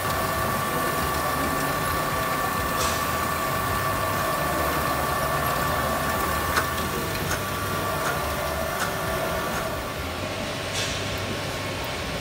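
Moba Forta GT100 egg grader running: a steady mechanical clatter from the roller conveyor and drives carrying eggs, with a constant whine and a few sharp clicks.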